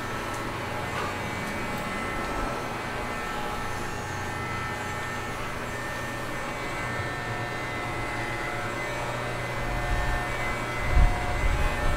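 Electric dog grooming clippers running with a steady hum while trimming a dog's coat. Low thuds come in near the end.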